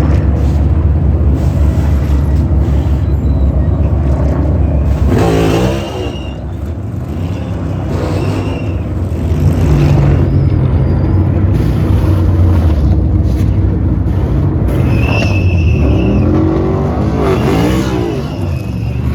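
NASCAR Cup Series stock cars racing with V8 engines at full throttle, a steady heavy engine rumble. Cars sweep past about five seconds in and again near the end, their pitch sliding as they go by.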